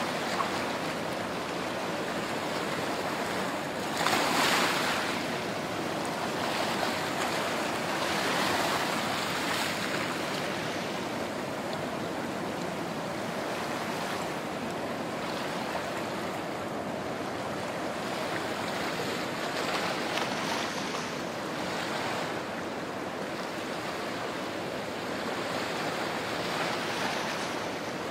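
Small waves washing in over a shallow sandy and coral-rock shore, a steady rush of surf that swells louder about four seconds in and again around eight seconds.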